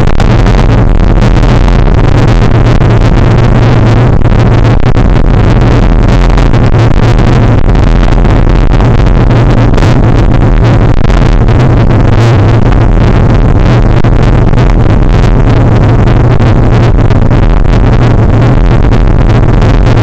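A vehicle running down a rough dirt track, heard from a camera mounted on board: a steady low engine hum under constant rattling and knocks from the bumpy ground. It is very loud, close to the recording's maximum level throughout.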